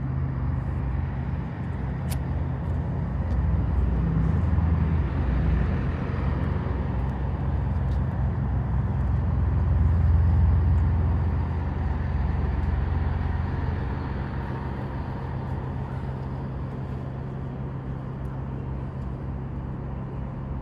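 Class 165 diesel multiple unit arriving at the platform, its underfloor diesel engines running with a steady low hum. The sound grows louder to about ten seconds in, then eases off as the train slows.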